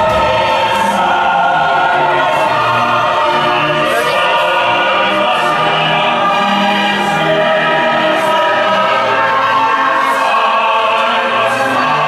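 Background music: choir-like voices singing long held chords over low sustained notes, steady in loudness throughout.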